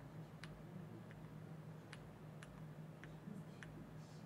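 Faint, irregular clicks at a computer, several in a few seconds, over a low steady hum; otherwise near-silent room tone.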